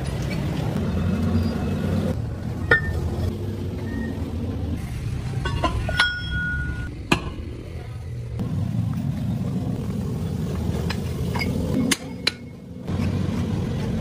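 A few sharp metallic clinks of steel hydraulic-cylinder parts being handled and fitted together, over a steady low workshop rumble that changes abruptly a few times.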